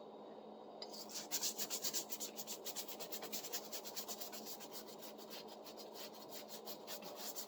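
Rapid rasping strokes against the rusty blade of a folding pruning saw, several a second, starting about a second in and running steadily on.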